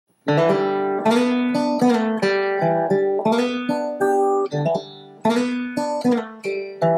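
Intro music of acoustic guitar, chords picked and strummed in a steady rhythm, starting about a quarter second in.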